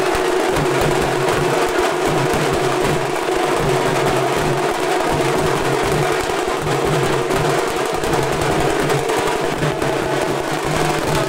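Loud drum-driven dance music, with rapid drum strokes over steady held tones underneath.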